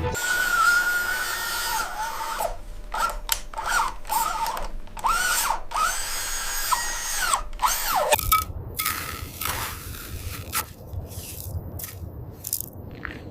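Small electric motors and gearboxes of radio-controlled model construction vehicles whining, rising and falling in pitch as they speed up and slow down in short spurts, with abrupt breaks between them.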